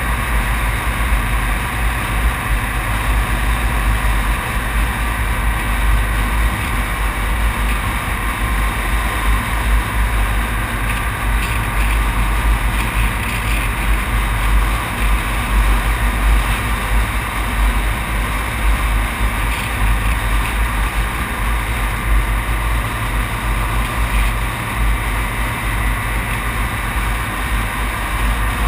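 Steady vehicle driving noise at road speed: a constant low wind rumble over the microphone mixed with engine and tyre noise, picked up by a camera mounted on the outside of the vehicle.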